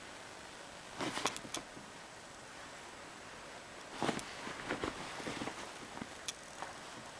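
Cotton pillowcase rustling and scuffling as a cat pounces on and wrestles with the pillow: a short burst with a few sharp clicks about a second in, then a longer scuffle from about four seconds on.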